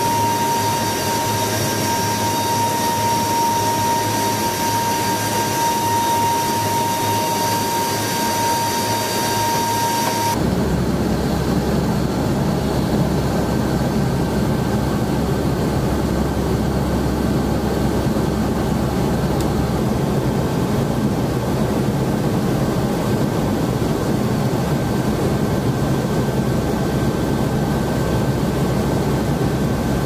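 Military transport aircraft engines running, heard from the open rear cargo ramp, with a strong steady high whine over the engine noise. About ten seconds in the sound cuts abruptly to the deeper, steady drone of the aircraft in flight heard inside the cockpit.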